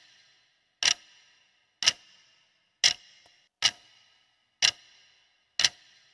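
Countdown timer sound effect: a clock tick about once a second, six ticks, each with a brief ring after it.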